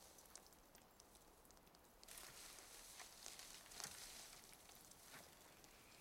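Near silence: faint forest ambience, a soft high hiss with scattered small ticks and rustles.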